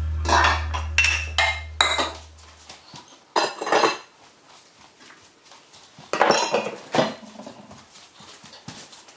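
Dishes, glasses and a frying pan clattering and clinking as they are picked up and set down on a kitchen counter: a run of separate knocks and clinks, the loudest in the first second, about three and a half seconds in and about six seconds in.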